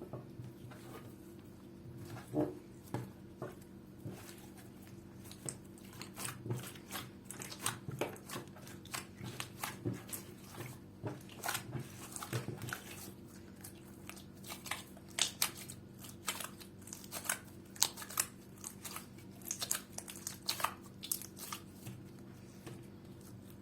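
Hands kneading and mixing slime: irregular sticky clicks and pops as the slime is pressed and pulled apart, coming thicker after the first few seconds, over a steady low hum.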